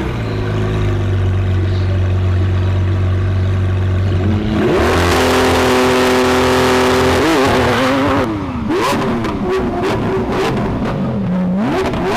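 Lamborghini engine running low and steady, then revving sharply about four and a half seconds in and holding high revs. The revs then drop and wander with a string of sharp crackles, and climb again near the end.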